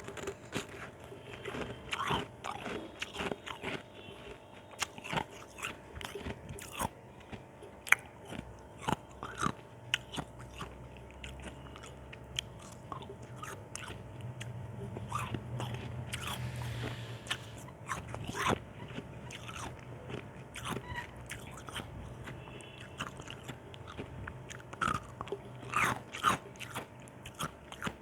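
Ice chunks being bitten and crunched between the teeth, with irregular sharp cracks and chewing throughout.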